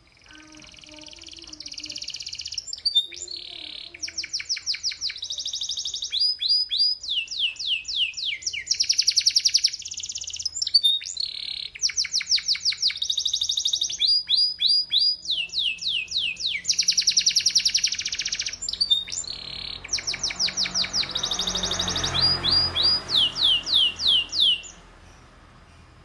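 Domestic canary singing one long, varied song: fast trills of quickly falling notes alternating with held rolling phrases, each repeated for a second or two. The song stops about a second before the end.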